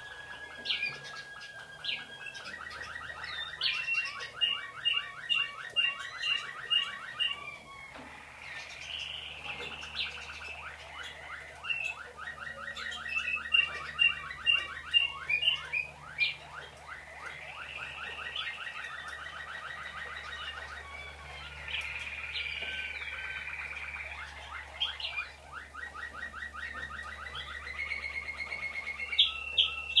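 A white Waterslager song canary singing continuously: long, rapid rolling trills held for several seconds at a time, broken now and then by runs of separate, higher, louder notes.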